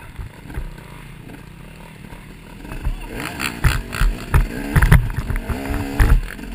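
Off-road motorcycle engine running low and quiet for the first few seconds, then revving up and down repeatedly from about three seconds in, with sharp knocks and thumps of the bike over rough, rutted ground.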